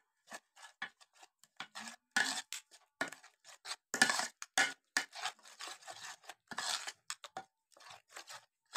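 Metal spoons scraping and clinking against a ceramic bowl as a thick yogurt-and-spice marinade is stirred, in quick, irregular strokes.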